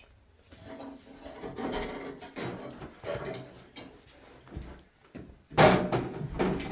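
Repeated rough scraping, rasping strokes, irregular in rhythm, with a louder burst of noise about five and a half seconds in.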